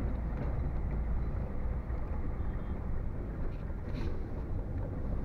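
Heavy truck's diesel engine running steadily as the truck drives along a rough dirt track, heard from inside the cab as a low rumble with road noise. A faint click about four seconds in.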